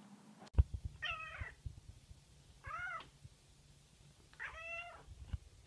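A domestic cat meowing three times, each meow a short arching cry, with pauses of a second or more between them. Just after the start there is a sharp thump, the loudest sound, followed by a few low knocks.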